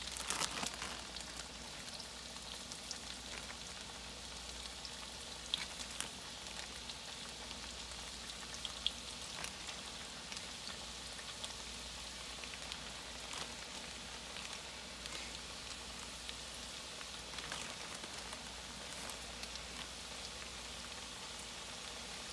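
Cornmeal-coated summer squash slices shallow-frying in hot oil in a cast-iron skillet: a steady sizzle and crackle with scattered sharp pops, as more slices are laid into the oil one by one.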